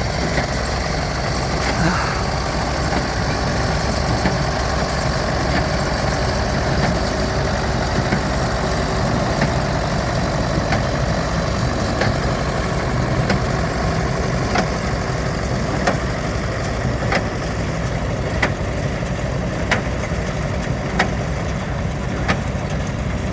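Massey-Harris 44 tractor engine running steadily while driving a 701 baler. Sharp knocks repeat about every second and a half.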